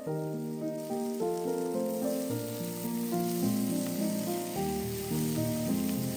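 Beef liver slices and bell pepper strips sizzling in oil in a frying pan, heard under louder background music of held instrumental notes that change in steps.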